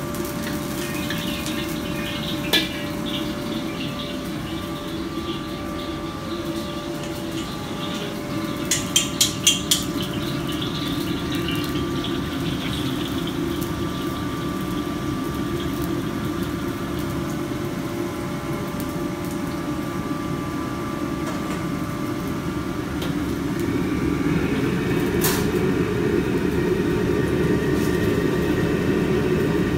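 High-output restaurant wok burner rushing steadily under a carbon-steel wok while beaten egg sizzles in it. A metal wok spatula taps the wok in a quick run of about five clicks some nine seconds in. The burner grows louder near the end.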